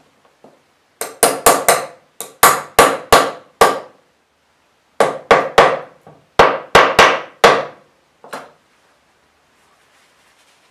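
Small hammer tapping the handle pins through a knife's wooden scales and steel tang as they are seated in epoxy: about twenty sharp taps in four quick runs, each ringing briefly, then one lighter tap.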